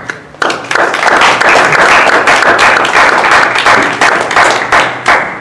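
Audience applauding: dense clapping from many hands that swells about half a second in and fades near the end.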